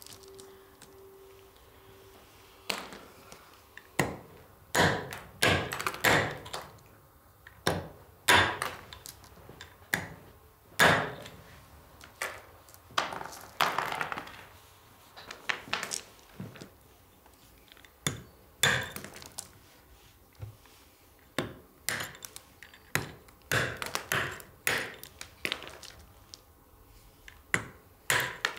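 Hand hammer striking and splitting small pieces of stone on a block, cutting them into little cubes. It comes as irregular sharp cracks with a short ring, sometimes a second or two apart and sometimes in quick pairs.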